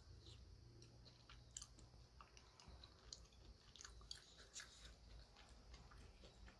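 Faint close-up chewing of a mouthful of noodle soup: an irregular run of small mouth clicks that thins out near the end.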